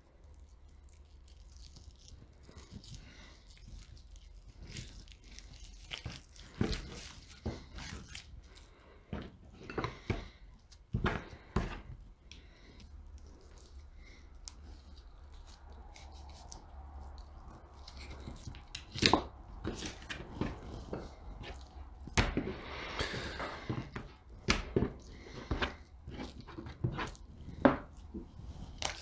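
Boning knife clicking and scraping against a plastic cutting board as raw chicken thighs are deboned, with wet tearing as the meat and skin are pulled apart by hand. Scattered sharp knocks throughout, and one longer rasping sound about three-quarters of the way through.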